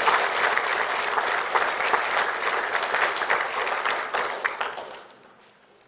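Audience applauding, a dense patter of hand claps that fades out about five seconds in.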